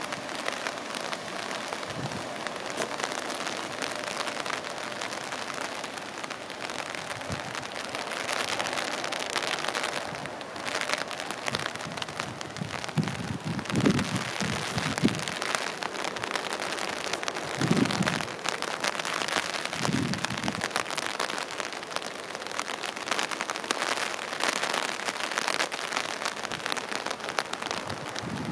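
A steady, even outdoor hiss with a few soft low thumps around the middle.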